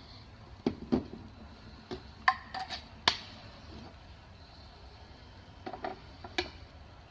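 Hard plastic clicks and knocks as facial cleansing brushes are handled against a molded plastic storage case: a scatter of sharp taps in the first three seconds, the loudest two or three seconds in, then a few more taps around six seconds in.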